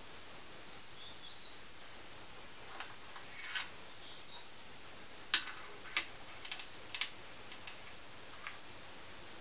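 Light clicks and taps of small 1:50 scale model excavator boom parts being handled and set down on a wooden desk, the sharpest three about five to seven seconds in, over a steady hiss. Faint high chirps in the first second or so.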